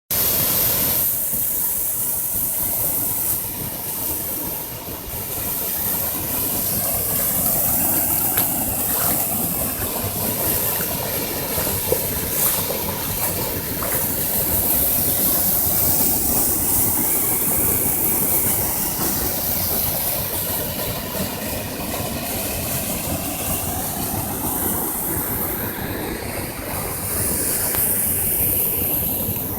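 Waterfall: water pouring and splashing in a steady, loud rush of noise.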